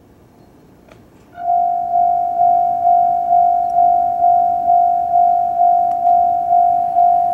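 Japanese level-crossing warning bell starting about a second and a half in: one loud ringing tone struck a little over twice a second, each strike fading before the next. It signals an approaching train.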